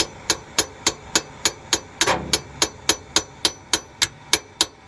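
Steady metal-on-metal hammer blows, about three a second, with a ringing clank on each strike, hammering at a seized exhaust bolt that has been heated to free it; the bolt does not break loose.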